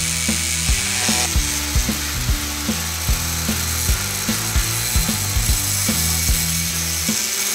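Angle grinder converted into an oscillating multi-tool, its saw blade buzzing as it plunge-cuts into the edge of a wooden board. Background music with a steady drum beat and held bass notes plays over it. The cutting hiss is strongest in about the first second.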